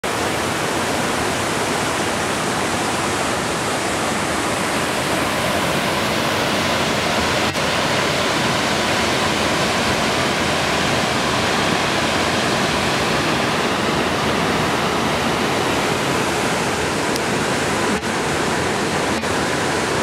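Middle McCloud Falls, a wide curtain waterfall, pouring into its plunge pool: a steady rush of falling water.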